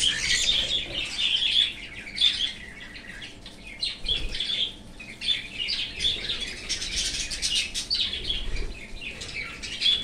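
A flock of cockatiels chirping and squawking in dense, overlapping calls as they squabble over a leaf of spinach.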